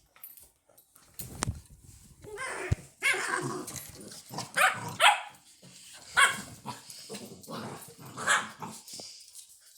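Labrador puppies barking and growling as they play-fight, a run of sharp yappy barks with rough growls in between, starting about a second in.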